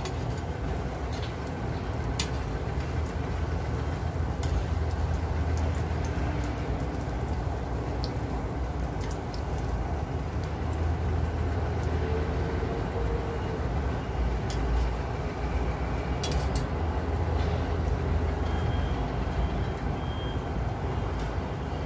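Dough cakes frying in hot oil over a low flame: a steady sizzle with scattered small pops and crackles, over a steady low rumble.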